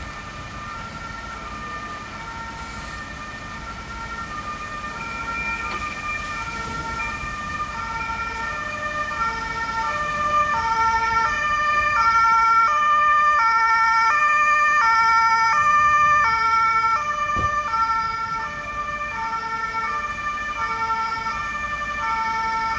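Two-tone siren of an approaching fire service vehicle, a high and a low note alternating about every half second. It grows louder as the vehicle nears and is loudest around the middle.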